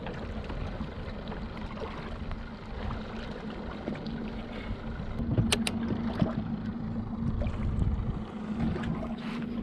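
Ambience aboard a small open boat at sea: water sloshing against the hull and wind on the microphone, under a steady low hum. A few sharp clicks come about five and a half seconds in.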